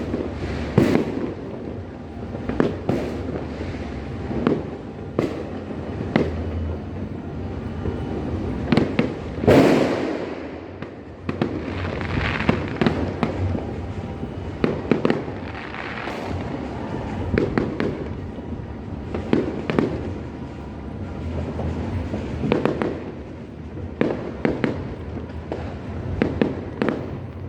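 New Year's Eve fireworks and firecrackers exploding all around in an irregular string of bangs and crackles, with the loudest blast about nine and a half seconds in.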